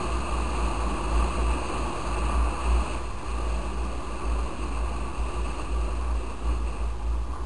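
Wind buffeting the microphone of a moving motorcycle, a heavy uneven rumble over the steady running of the Yamaha Fazer 250's engine.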